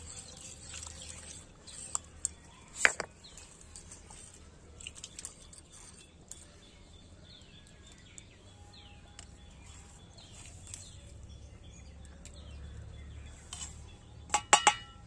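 Hands rinsing and rubbing a stone grinding slab with water, quiet scattered clicks and splashes. Shortly before the end, a quick run of sharp clinks as garlic cloves and mustard seeds are tipped from a steel plate onto the stone.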